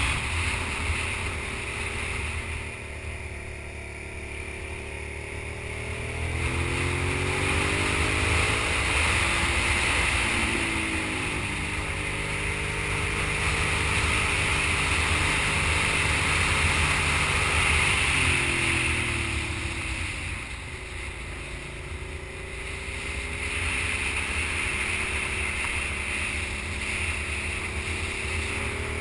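Sport motorcycle engine being ridden through tight bends, its revs falling and rising again several times as the rider backs off and accelerates between corners, over a steady rush of wind.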